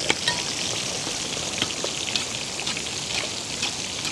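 Whole masala-coated pearl spot fish (karimeen) deep-frying in hot coconut oil: a steady, dense sizzle with scattered crackles and pops.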